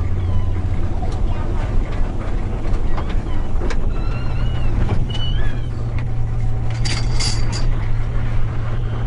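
Bus diesel engine running with a loud, steady low drone, its exhaust pipe joint come loose so the engine is leaking exhaust and has lost power. The engine note steps up slightly a few seconds in, and a short hiss comes near the end.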